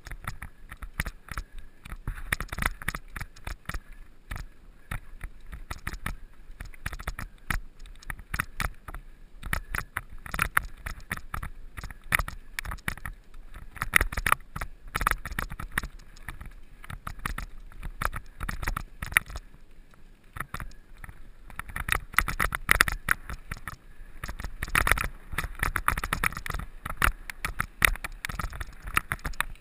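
Mountain bike rattling and clattering over stony quarry ground: a dense, irregular run of clicks, knocks and tyre crunch over a low rumble, heavier around the middle and again in the last third.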